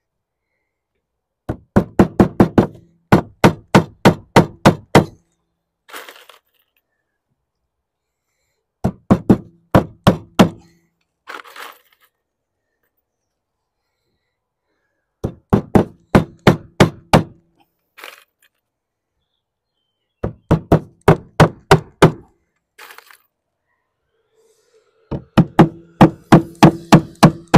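Claw hammer driving nails through a lead sheet into a plywood cheek: six runs of quick blows, about four to five a second, each run a few seconds apart.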